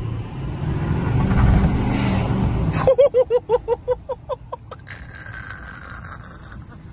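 Chevrolet Silverado 2500 HD's 6.6-litre Duramax turbo-diesel V8 pulling hard from a stop, the engine rumble building for about three seconds as the tyres spin and break loose. A man then laughs in quick bursts for about two seconds, over steady road noise.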